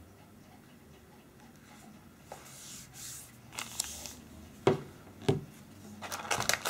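Hands handling a smartphone and its cardboard packaging on a wooden table. Soft rustling is followed by two sharp knocks about half a second apart as the phone is set down on the tabletop, then crackly rustling of the box's cardboard inserts near the end.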